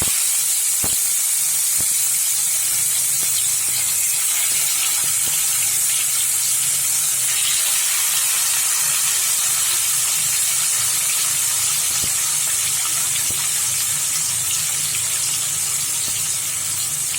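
Marinated rohu fish pieces frying in hot mustard oil in a kadhai: a loud, steady sizzle with fine crackling.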